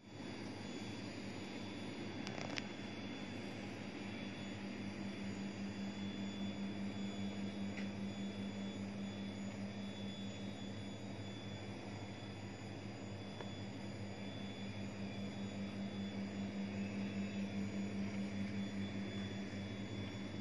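Freezer compressor running with a steady electric hum, with a couple of faint clicks.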